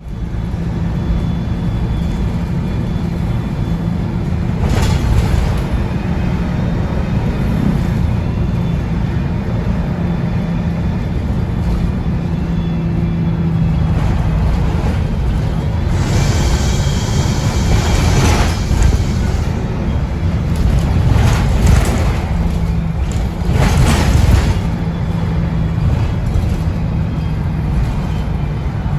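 MAN 18.240 single-deck bus's diesel engine running steadily on the move, with a strong low drone and a few short hissy bursts.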